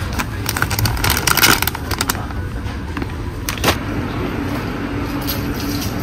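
Plastic snack packet crinkling in a hand for a second or two, with a sharp knock a little later, over a steady low rumble of background noise.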